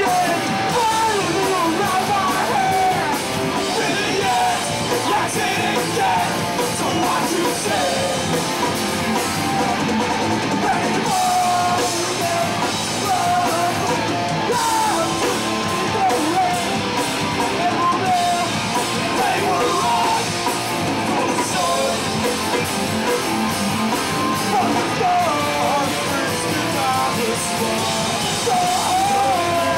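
Hardcore punk band playing live at full volume: distorted electric guitars, bass guitar and drum kit pounding on without a break.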